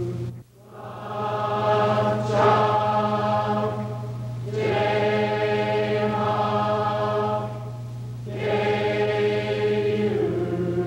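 Choir singing long held chords in slow phrases of about four seconds each, over a steady low drone.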